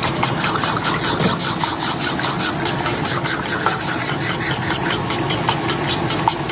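Food being stirred and mixed quickly in a pan or bowl, a fast even wet slapping of about five or six strokes a second: the "chap-chap" sound.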